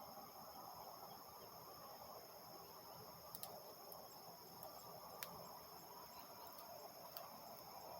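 Faint evening chorus of crickets, a steady high-pitched trilling, over a low distant hum of harvest machinery. Three short clicks come in the middle of the clip.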